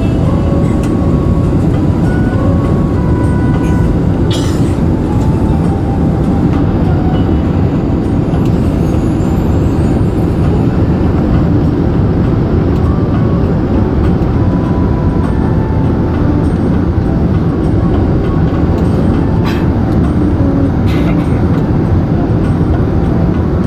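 Steady low rumble of an Airbus A380 airliner on its landing approach, with a few faint clicks.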